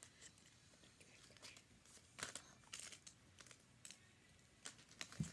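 Faint crinkling and rustling of small plastic wrappers being handled, with a few sharp little clicks.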